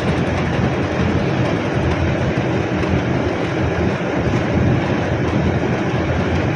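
Large poultry-house exhaust fans running together, a loud steady rushing noise with a low hum. Extra fans have been switched on because the house needs more air.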